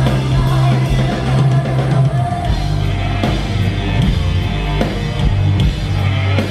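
Live rock band playing: drum kit, electric guitars and a heavy bass line, the bass stepping down to a lower note a couple of seconds in.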